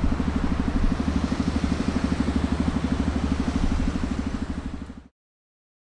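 Shinkansen train wheels running over the rail joints on an elevated viaduct: a rapid, even clatter over a steady low rumble, easing off near the end and then cutting off suddenly about five seconds in.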